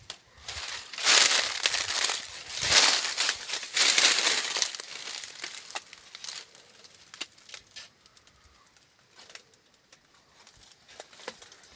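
Large leaves and twigs of a sebesten (Cordia myxa) tree rustling and brushing close to the microphone, loudest in the first half, then fading to a few scattered crackles.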